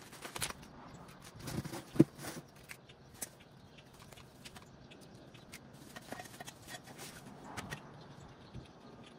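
Assembly handling noise: rustling of a plastic parts bag and scattered clicks and knocks of the edger's parts, with one sharp knock about two seconds in.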